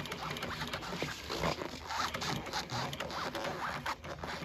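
Industrial sewing machine running and stitching a seam through upholstery fabric, its needle strokes a rapid, even clatter.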